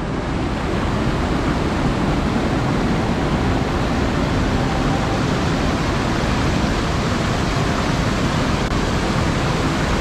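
Waterfall pouring over rock: a steady, dense rush of water that swells in over the first second and then holds even.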